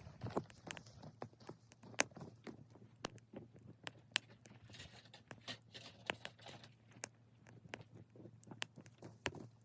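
Small wood fire crackling in a Sierra stove: irregular sharp snaps and pops, several a second.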